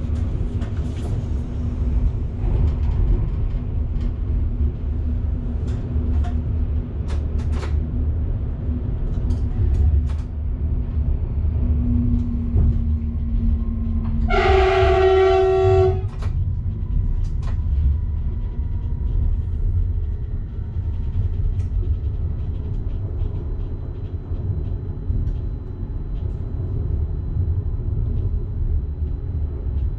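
Steady low rumble of a train running, heard from the driver's cab, with one train horn blast of about a second and a half about halfway through.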